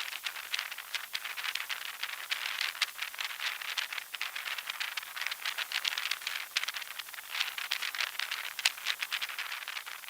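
Rapid, irregular patter of many small sharp ticks and rattles, with no low end.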